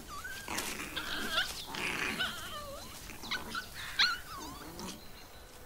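Asiatic raccoon dog pups whimpering and whining: many short, high, wavering calls, one after another.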